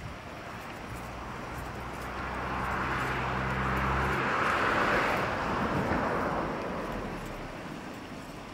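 A vehicle passing by: a steady rushing noise that swells, peaks about halfway through and fades away, with a low engine hum under it in the first half.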